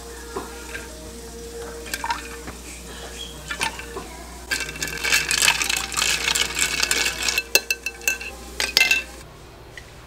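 Ice cubes clinking against a glass mason jar as iced coffee is stirred: a few single clinks, then a fast run of clinking and rattling from about halfway in that stops shortly before the end.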